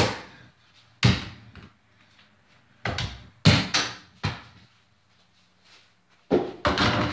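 Mini basketball bouncing on a hard floor a few separate times, then, after a shot, a quick run of knocks as it hits the over-the-door hoop's backboard and the door and bounces away.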